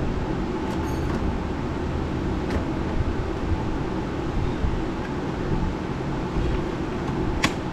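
A steady low mechanical hum with a few light clicks, the sharpest near the end.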